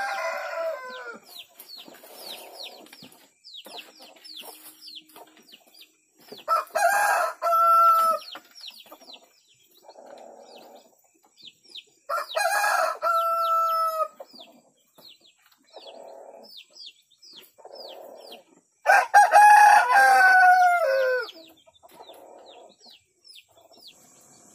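A rooster crowing four times, about every six seconds, each crow a drawn-out call that holds and then falls away at the end. A faint high chirping repeats steadily in the background.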